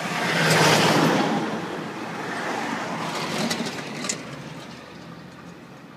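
Road traffic passing close by: a vehicle goes past loudly, swelling about half a second in and fading away over the next second or so, then a second, quieter vehicle passes around three to four seconds in and dies away near the end.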